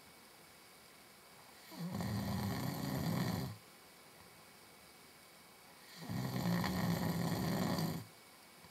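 A man snoring in his sleep: two long snores, each under two seconds, about four seconds apart, with quiet between.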